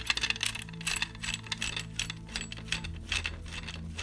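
Screwdriver turning a small screw into a metal shock stay: a rapid run of small metallic clicks and scrapes.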